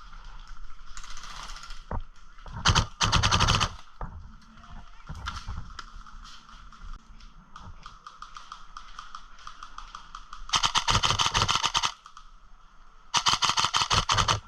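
Electric airsoft guns firing three rapid full-auto bursts of fast, evenly spaced snaps. The first burst is about three seconds in, and the two longer bursts come near the end.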